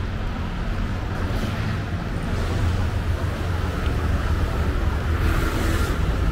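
Motor traffic on a city street: a steady low engine rumble from a nearby vehicle, with a short hiss about five seconds in.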